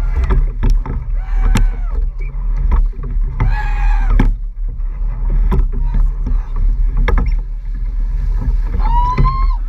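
Rowing eight under way at racing pace, heard from a camera on its hull: a steady low rush of water and wind on the microphone, with sharp knocks from the oars in their oarlocks about every second and a half. Two high yells cut through, one about three and a half seconds in and one near the end.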